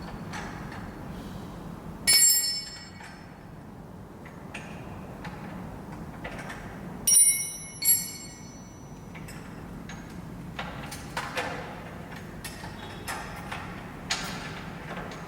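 Metal parts and tools clinking during motorcycle chain work. There are bright ringing clinks about two seconds in and again around seven to eight seconds in, where they come as a quick pair. Scattered small ticks and clicks run over a steady low hum.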